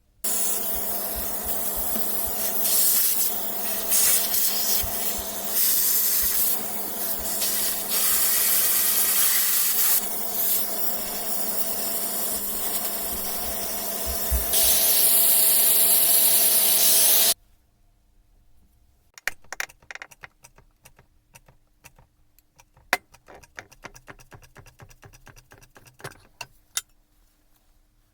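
A pressurised jet hissing hard and steadily for about seventeen seconds, rising and dipping in level as it is aimed, then cutting off suddenly. Light clicks and clinks of small metal parts being handled follow.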